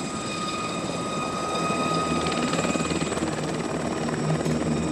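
Aircraft turbine engine running with a steady high whine over a low rumble, growing slowly louder.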